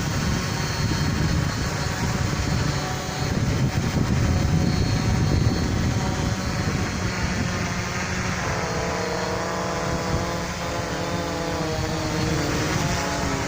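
F450 quadcopter's four brushless motors and 10-inch propellers hovering, their whine wavering in pitch as the flight controller holds position in strong wind. Wind buffets the microphone throughout.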